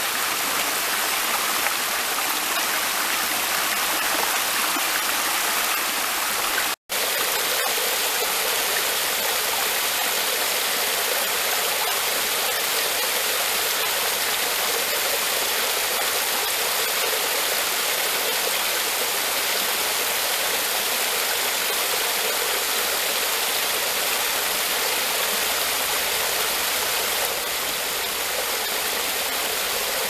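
Small waterfall on Duck Creek splashing steadily over stepped limestone ledges at low flow. The sound drops out for a moment about seven seconds in, then goes on with a slightly deeper splash.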